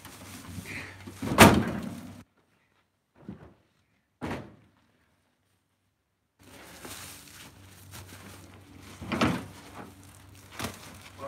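Heavy ash firewood rounds knocking and thudding against each other and the pickup's bed as they are pulled toward the tailgate: one loud thump about a second and a half in, then a few lighter knocks.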